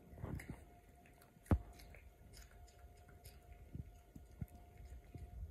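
A small dog gnawing and crunching on a raw carrot, in irregular bites, with one loud sharp click about a second and a half in.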